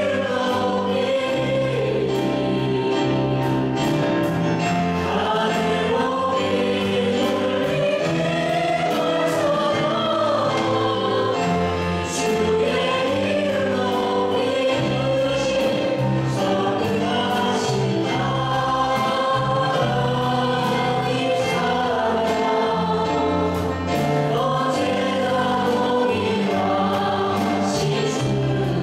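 A worship team of two women and a man singing a Korean gospel praise song in harmony into microphones, over a steady instrumental accompaniment with held bass notes.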